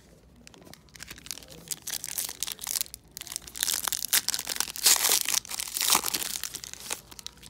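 Foil wrapper of an SPX hockey card pack being torn open and crinkled in the hands as the cards are pulled out: a run of crackling, crinkling tears, loudest through the second half.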